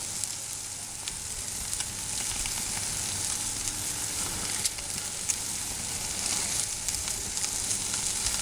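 Burgers and kebabs sizzling on a barbecue grill: a steady hiss with scattered small pops.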